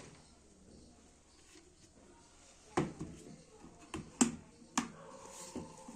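Sharp clicks and knocks of hard objects being handled, four of them in the second half after a quiet start.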